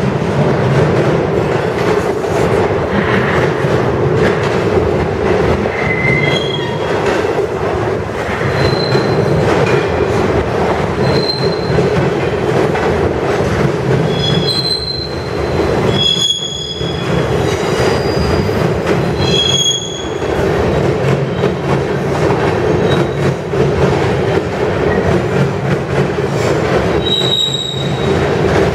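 Freight cars rolling past close by: a steady rumble of steel wheels on rail, broken by short high-pitched wheel squeals now and then, several in the middle and one more near the end.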